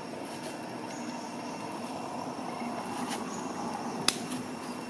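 A steady low rumble that swells a little through the middle, with one sharp click about four seconds in.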